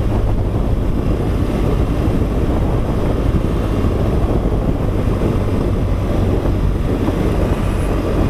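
Motorcycle engine running steadily while riding along a dirt trail, with wind rushing over the microphone.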